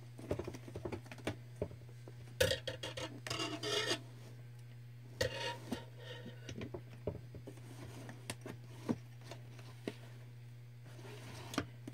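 Makeup storage containers and palettes being handled: scattered small clicks and a few short stretches of rubbing and scraping, over a steady low hum.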